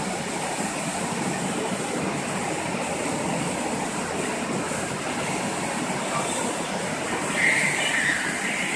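Automatic rollover car wash machine running with a steady, loud rushing noise and a faint high whine. A brief higher-pitched sound rises over it about seven and a half seconds in.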